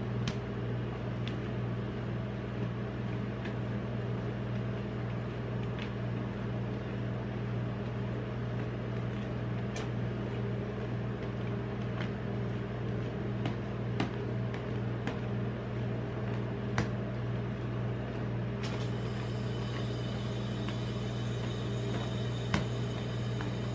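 Metal spatulas scraping and spreading ice-cream base on a steel cold plate, with a sharp click of steel on steel every few seconds, over a steady low machine hum.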